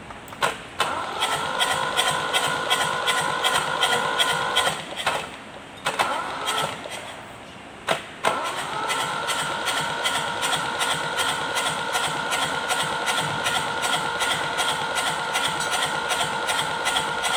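Starter motor cranking a rebuilt Kubota Z851 two-cylinder diesel: a steady starter whine with an even beat of about three pulses a second, in three runs, a longer one, a brief one, then a long one. It is cranked to bleed air from the fuel system and get it started.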